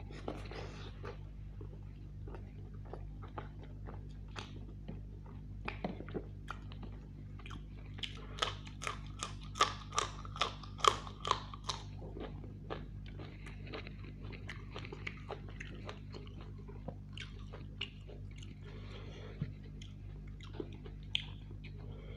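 Close-miked chewing and biting of roast chicken: wet mouth clicks and crunches, with a run of loud crunchy chewing in the middle. A steady low hum runs underneath.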